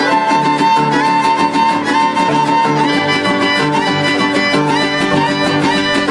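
Two violins of a Mexican harp-and-violin ensemble play a lively melody together in sustained bowed notes. A steady, repeating bass line sounds underneath.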